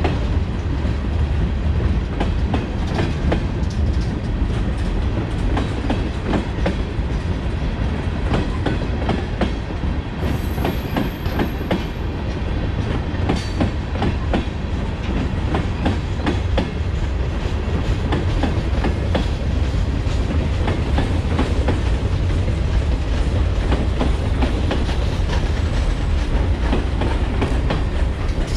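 Freight cars of a long train rolling past, with a steady low rumble and a continuous clickety-clack of wheels over the rail joints.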